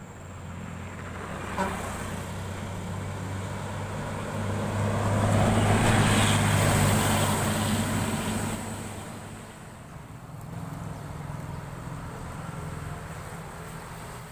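A heavy vehicle passing on the road: engine hum and tyre noise swell to their loudest about six seconds in, then fade, and another vehicle approaches near the end. No horn sounds.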